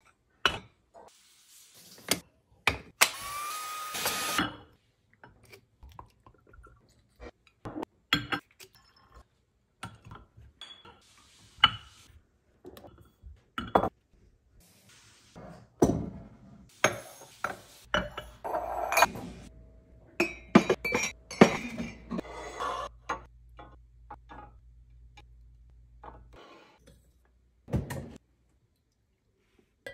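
A run of short handling sounds from glass canisters and bottles: lids clinking off and on, containers set down on a counter, and contents poured in, with a pour about three seconds in whose pitch rises as the jar fills. Near the end, a drawer is pulled open.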